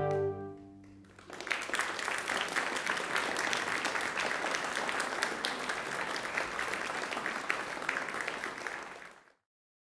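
A chamber orchestra's final chord ends, and after a short lull an audience applauds steadily for about eight seconds. The clapping cuts off suddenly near the end.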